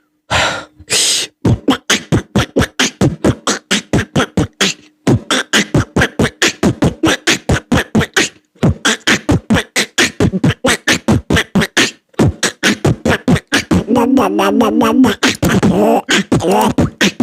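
Vocal beatboxing: a fast, even run of mouth-made drum hits, about four to five a second, that breaks near the end into a wavering, quacking Donald Duck-style voice mixed with the beat.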